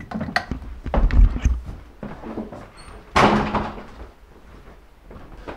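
Footsteps thudding down an indoor staircase, with knocks and bumps; the heaviest thuds come about a second in. There is a short rushing noise a little after three seconds.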